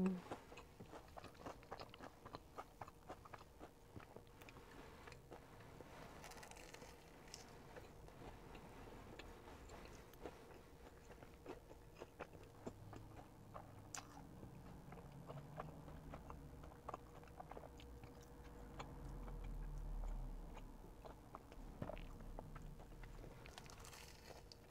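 Chewing and crunching bites of a Korean mozzarella corn dog with a crispy coated crust, many small crisp ticks scattered throughout. A low rumble rises and fades about three-quarters of the way through.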